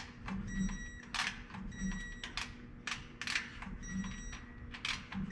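Light metallic clicks and taps at irregular spacing, roughly one or two a second, as axle flange bolts are fitted by hand into the rear wheel hub of a Dodge Ram 5500.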